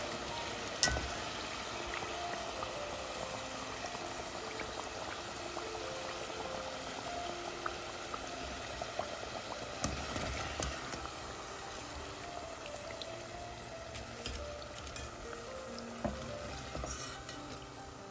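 Liquid bubbling steadily in a pot or pan on the stove, with a few sharp clicks of utensils. Soft background music plays over it.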